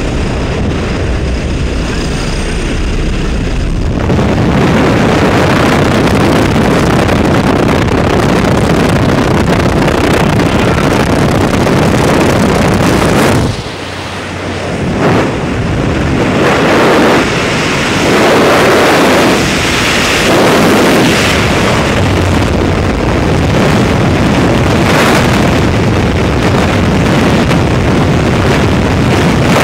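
Engine noise of a small skydiving aircraft heard inside its cabin, then, about four seconds in, loud rushing wind over the camera microphone, which goes on through the exit and tandem freefall, with a brief dip in the noise around the jump.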